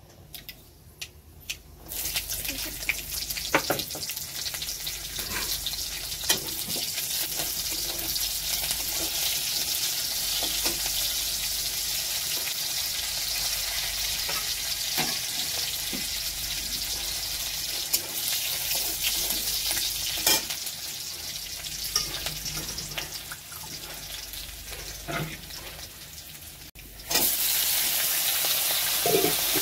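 Hot oil sizzling in an iron kadhai, with a steel spatula scraping and clicking against the pan as it stirs. Near the end the sizzle turns louder as sliced bitter gourd and potatoes fry and are stirred.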